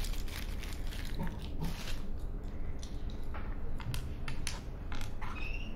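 Small electronics hardware being handled on a table: an irregular run of light clicks and knocks of plastic and circuit boards, over a steady low hum.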